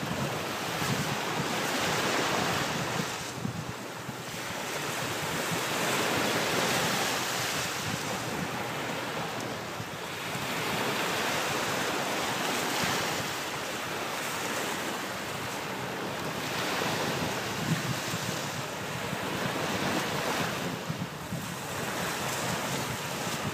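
Ocean surf washing on a beach, the noise swelling and falling back every few seconds, with wind buffeting the microphone.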